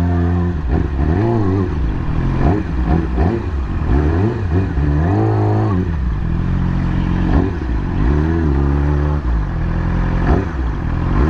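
Yamaha YZF-R6's inline-four engine running at low speed, its pitch rising and falling several times as the throttle is opened and eased off.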